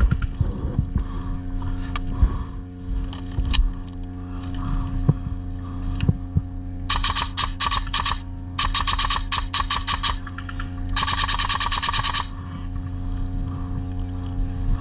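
Airsoft electric gun firing three bursts of rapid full-auto shots, each about one to one and a half seconds long, in the second half, over a steady low drone.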